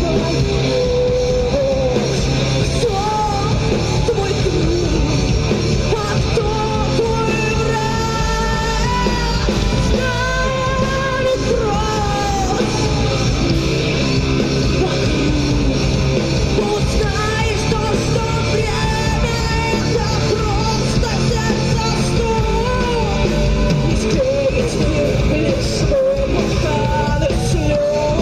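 A rock band playing live, with a lead vocal sung over the full band throughout.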